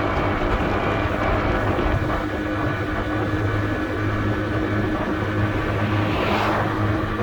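Honda Dio AF62 scooter's 50cc four-stroke single-cylinder engine running steadily, with a brief rush of noise about six seconds in.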